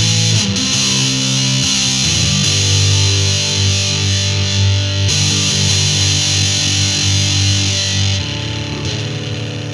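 Electric guitar played through a Musontek FurFur fuzz pedal: thick, fuzzy distorted chords, changing a few times in the first couple of seconds and then one long held, sustaining chord.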